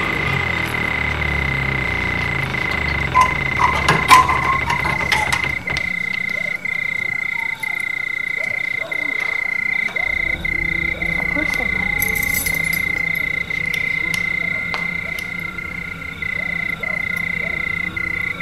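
A steady high-pitched trilling tone runs throughout, over a low hum that drops away about six seconds in and returns about four seconds later. A few sharp clicks and knocks about three to five seconds in are the loudest sounds.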